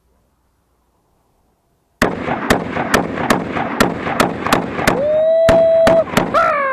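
Browning M1919 .30 caliber machine gun in semi-auto firing a rapid string of shots, about three a second, starting abruptly about two seconds in. Over the later shots comes a long held whoop, then several falling ones.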